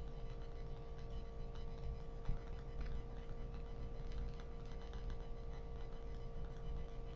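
Empty-room tone through a webcam microphone: a steady electrical hum with low rumble and a scatter of faint, irregular clicks, and one small knock a little over two seconds in.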